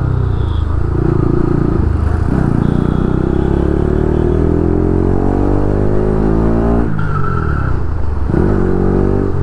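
Bajaj Pulsar RS 200's single-cylinder engine accelerating hard, its pitch climbing steadily for several seconds. The pitch drops sharply at two upshifts, about seven and eight seconds in, and climbs again after each.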